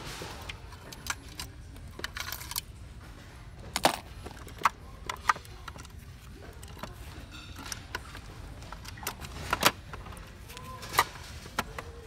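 Small metal fishing tackle (lures, hooks and lead sinkers) clinking and rattling in the plastic trays of a Sears four-tray tackle box as hands rummage through it: scattered sharp clicks and clacks, a few of them louder.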